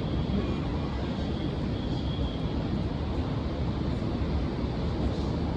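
Steady low background rumble, unchanging throughout, with no distinct handling sounds standing out.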